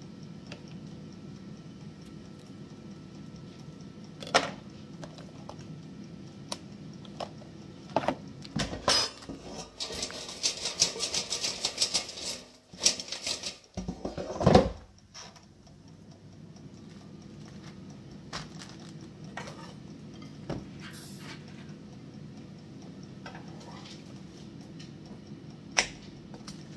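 Kitchen handling sounds over a steady low hum: scattered knocks and clicks as plum tomatoes are placed in a bowl of salad, a burst of rapid crackling about ten seconds in, and a louder knock shortly after. Near the end a spatula clinks once against the frying pan.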